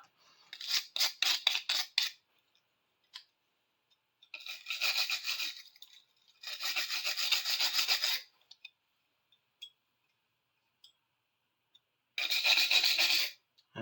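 A brush scrubbing rusty metal pliers by hand, in four spells of quick back-and-forth strokes with pauses between. The first spell's strokes come about five a second.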